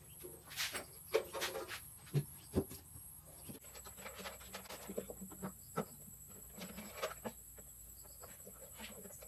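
Scattered light clicks and knocks of parts and tools being handled while assembling a subwoofer cabinet, the sharpest in the first three seconds, over a faint steady high whine.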